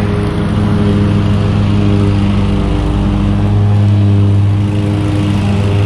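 Small engine of a commercial stand-on lawn machine running steadily under load, its pitch holding almost constant.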